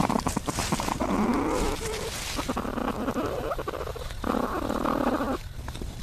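Platypuses moving in their nesting chamber, heard through a microphone inside the burrow: rustling and scratching of roots and nest material, with low animal calls rising in pitch about a second in. A louder spell of rustling comes near the end.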